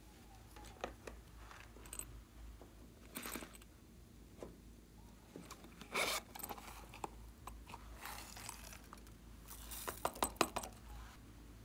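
Small zipper on a silicone pouch being pulled open with a short rasp about six seconds in, amid light handling taps and clicks, then a quick run of clicks near the end as the pouch is squeezed over the bowl.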